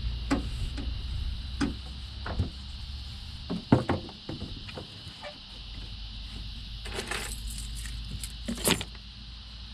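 Scattered clicks, knocks and rattles, as of gear being handled in an aluminium jon boat, over a low steady hum.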